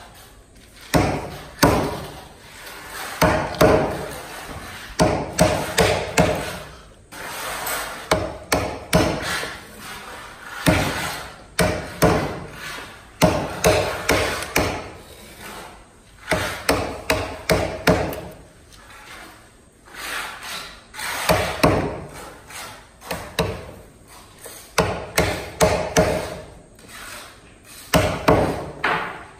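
Claw hammer striking a wood chisel to cut a mortise in a timber beam: repeated sharp knocks in short runs with brief pauses between them.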